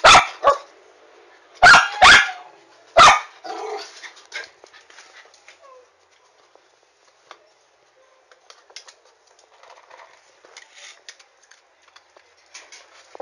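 Brazilian Terrier (Fox Paulistinha) dog barking: five sharp barks in the first three seconds, then only faint scuffs and clicks.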